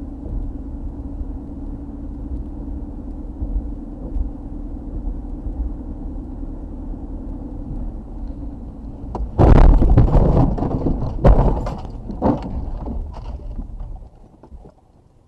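Steady road and engine drone inside a car on a snowy highway, then about nine seconds in a sudden run of loud bangs and crunches over about four seconds as the car slides off the road into the roadside guardrail and snowbank.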